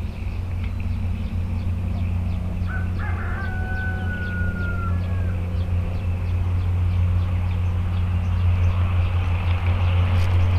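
A rooster crows once about three seconds in, a long drawn-out call of about two and a half seconds, over a steady low hum.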